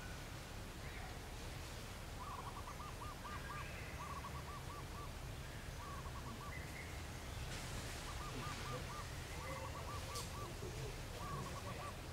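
A bird calling repeatedly in short bursts of about five quick hooting notes, roughly seven bursts, over a steady low background rumble.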